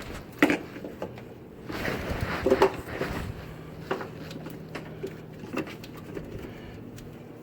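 Scattered clicks and knocks of tools and parts being handled during work on a car's A/C compressor, with a cluster of sharper knocks a couple of seconds in.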